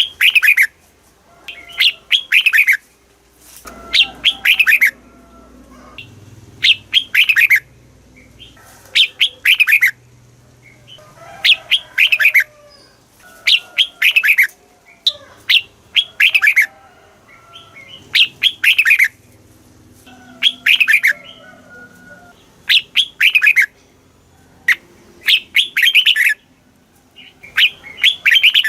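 Red-whiskered bulbul singing: loud, short phrases of quick notes that sweep downward, repeated about every two seconds.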